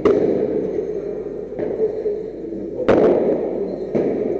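Padel ball struck by paddles during a rally: two sharp hits, one right at the start and one about three seconds in, over steady background noise.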